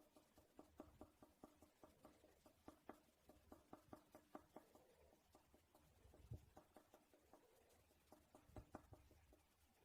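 Faint scratching of a coloured pencil on paper in short, quick strokes, about three or four a second, sketching short feather marks.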